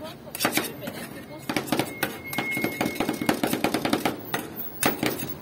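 Two metal spatulas chopping strawberries into ice cream base on a rolled-ice-cream cold plate: a rapid, irregular run of sharp metal-on-metal knocks against the frozen steel pan.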